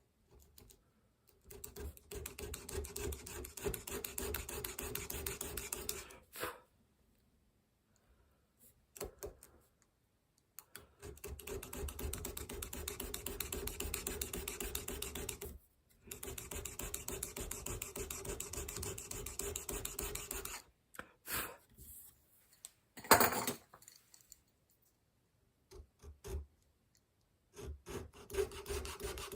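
Rapid back-and-forth rasping strokes of a hand tool, in runs of several seconds with short pauses between, and one sharp knock late on.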